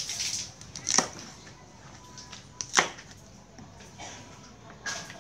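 Knife chopping on a wooden cutting board: three sharp strikes about two seconds apart, with rustling and scraping between them.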